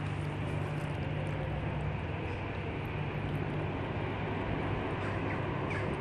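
Steady low machine hum under a constant rush of background noise, without pause.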